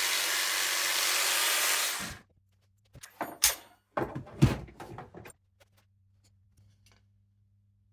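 Jigsaw fitted with an aluminum-cutting blade sawing through wood, a steady rasping noise that cuts off about two seconds in. A few seconds of knocks and clunks follow.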